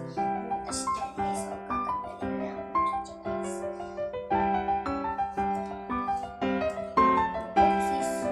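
Background piano music, a steady run of played notes.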